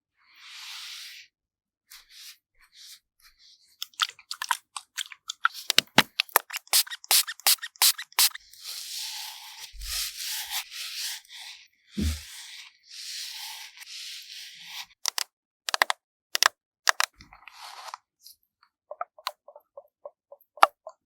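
Close-miked ASMR sounds of a makeup makeover on a green melon: a quick run of crisp clicks and crunchy taps, then scratchy rubbing strokes like brushes or sponges worked over a surface, and a rapid series of small ticks near the end.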